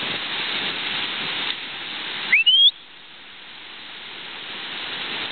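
Rushing whitewater of river rapids, with a single loud whistle that glides upward about halfway through. Right after the whistle the water noise drops abruptly and then slowly swells back.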